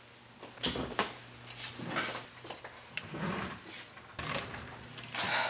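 Kitchen drawers and wooden cabinet doors being opened and shut while rummaging through them, giving several separate knocks and clacks.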